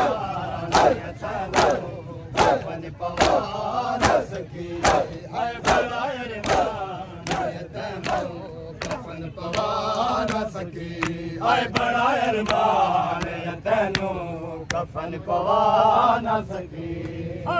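A crowd of men chanting a Muharram lament together, with a sharp beat keeping time a little more than once a second.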